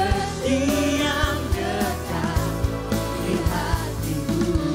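A male voice singing a worship song into a microphone over live instrumental backing with a steady beat.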